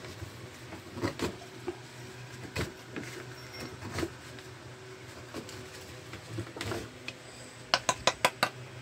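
Hand tool scraping and prying at a coconut shell, working the meat loose: scattered scrapes and knocks, then a quick run of about six sharp clicks near the end.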